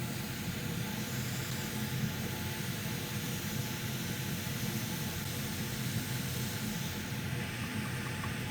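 Hot-air rework station blowing through a narrow nozzle, a steady hiss over a low hum.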